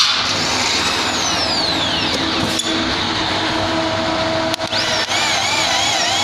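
Handheld electric drill boring holes through a metal ceiling T-suspension profile. The motor's whine rises and falls in pitch as the trigger is worked, with a couple of brief drops in speed.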